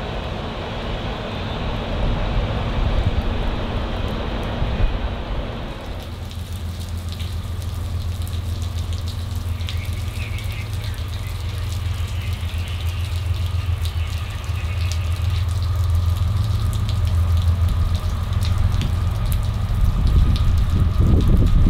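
A freight train passing, its cars and wheels rumbling on the rails. About six seconds in it cuts to a steady low rumble that grows louder toward the end as another freight train approaches.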